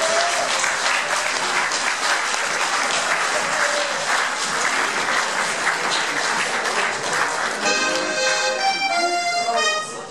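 Audience applauding in a hall, then about eight seconds in an accordion starts playing a melody.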